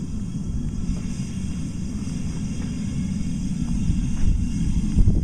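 Wind buffeting the microphone: a low, uneven rumble, with a few faint light knocks of tools and plaster shards being shifted.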